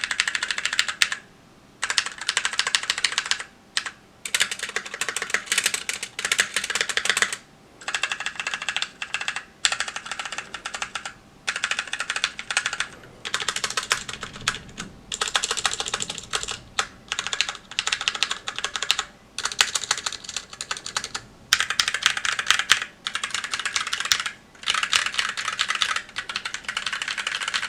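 Continuous typing on a Magicforce 68 mechanical keyboard with stock Gateron Brown tactile switches and GMK Olive keycaps. The keystrokes come in quick runs broken by short pauses every second or two.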